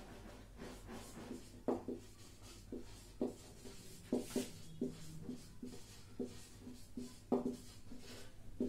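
Marker pen writing on a board: a string of short, irregular strokes and taps as words are written out.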